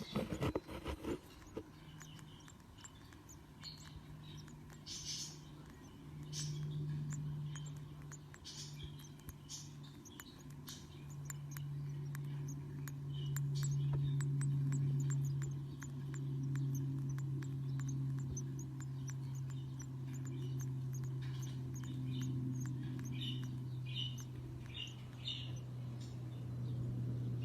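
Budgerigars chirping: many short, high chirps scattered throughout, over a steady low hum that grows louder about a third of the way in. A few sharp clicks sound in the first second.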